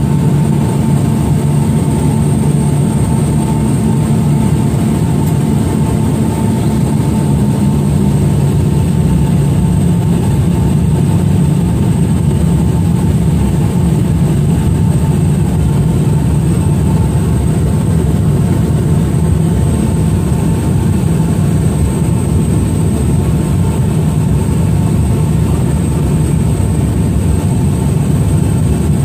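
Small mission aircraft's engine droning steadily, heard from inside the cabin, with a thin high whine running over the deep engine note.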